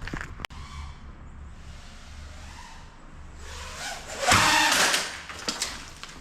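An FPV racing drone flies past close by, a loud rushing burst with a whine about four seconds in, over a low steady hum.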